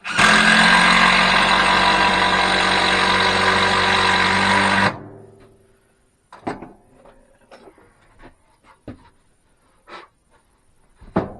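An electric power tool motor runs steadily for about five seconds, then is switched off and spins down. A few light knocks and clicks follow.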